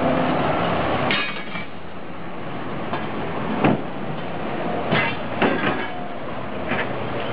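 Street traffic: a loud passing vehicle's noise falls away about a second in, then several sharp clacks and knocks follow as an articulated city bus drives past.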